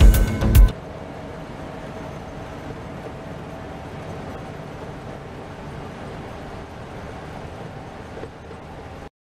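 Steady engine and road rumble inside a medium bus's passenger cabin as it drives, cutting off suddenly near the end.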